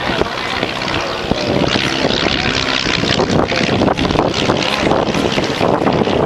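Engine and propeller of a single-engine aerobatic plane running continuously as it flies an aerobatic manoeuvre overhead.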